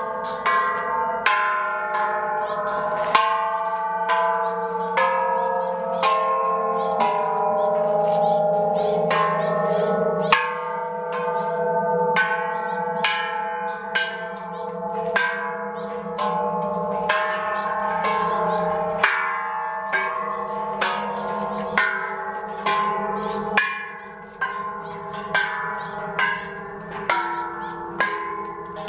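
A row of hanging Thai temple bells struck one after another with a stick, about one strike a second and a little quicker near the end, each bell ringing on under the next so the tones overlap.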